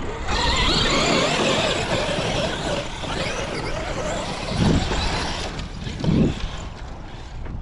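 Large Traxxas X-Maxx RC monster truck with a Hobbywing Max5 brushless system driving on sand: the electric motor whines, wavering in pitch, over a loud hiss, with two dull thumps about four and a half and six seconds in.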